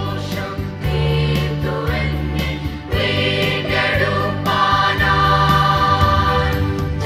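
Children's choir singing a Malayalam Christmas carol together, over an accompaniment of held low notes.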